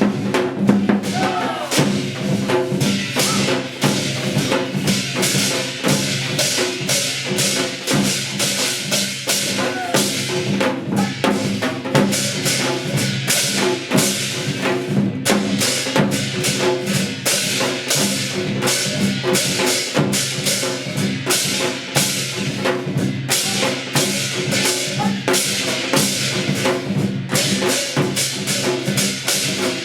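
Korean Hwanghae-do gut shamanic ritual music: rapid, dense drumming and percussion strikes over sustained pitched tones, with a wavering melodic line now and then.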